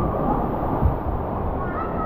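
Water rushing down a water slide and wind buffeting the microphone, with a single thump a little under a second in.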